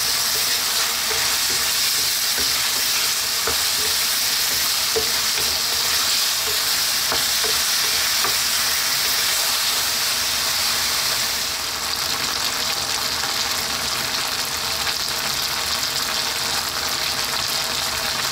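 Pork belly sizzling in a thick oyster sauce and ketchup sauce in a nonstick frying pan, stirred with a wooden spatula that scrapes and taps lightly against the pan in the first half. The sizzle drops a little about twelve seconds in.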